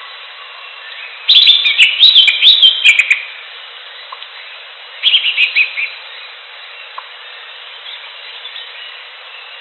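Green leafbird (cucak ijo) singing: a two-second phrase of rapid, varied whistles and chattering notes starting about a second in, then a shorter phrase about five seconds in, over a steady background hiss.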